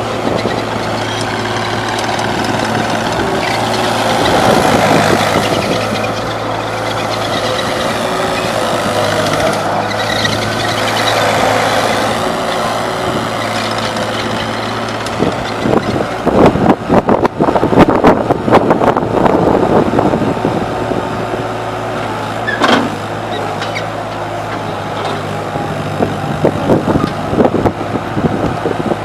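Terex PT30 skid steer engine running steadily, swelling louder a couple of times as it is throttled up, with a stretch of loud rattling and clanking about halfway through and more clanking near the end.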